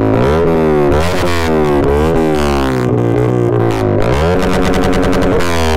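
Yamaha R15 V3's single-cylinder engine through an SC Project aftermarket exhaust, revved hard on the standing bike: the pitch sweeps up and down in quick repeated blips, then is held high for about a second near the end before dropping. Ear-splittingly loud.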